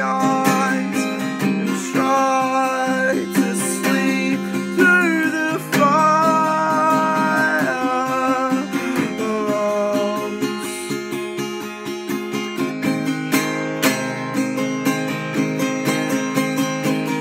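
Acoustic guitar music: strummed chords throughout, with a gliding melody line over them for the first ten seconds or so, then plain repeated strumming.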